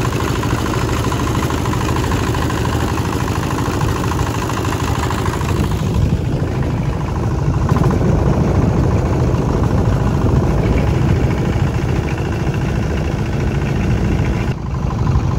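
Small single-cylinder diesel engine of a wooden boat running steadily under way, a loud, even drone.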